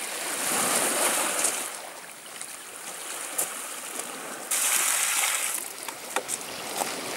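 Sea water washing and splashing on a pebble beach, with two louder rushes of water each about a second long and scattered clicks of pebbles.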